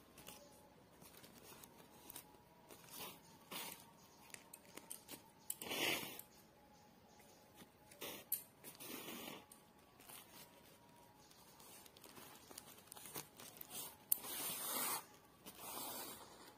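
Yarn being drawn through a woven plastic sack during hand embroidery, the sack's weave scraping and crinkling in several short pulls. The loudest pull comes about six seconds in, with a longer stretch of pulls near the end.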